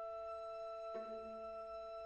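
Background music: steady held notes, with a new plucked note coming in about a second in.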